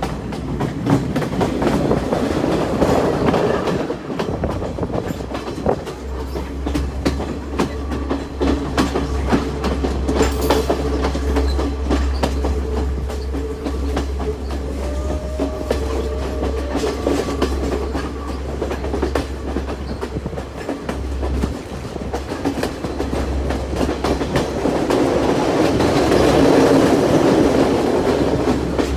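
Podi Menike passenger train running along the track, its wheels clicking over the rail joints against a steady rumble.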